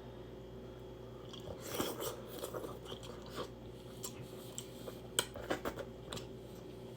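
A person eating seafood-boil food close to the microphone, with irregular wet chewing and biting clicks. They start about a second and a half in and stop about a second before the end, over a faint steady hum.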